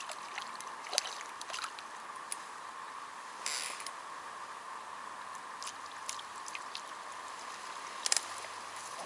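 A hooked roach splashing briefly at the water's surface about three and a half seconds in, with a few sharp clicks of tackle being handled, over a steady high hum.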